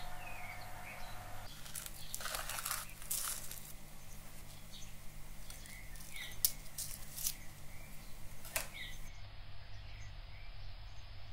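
Small birds chirping on and off in the background over a steady low hum, with rustling and a few sharp clicks as the plate and baking paper are handled.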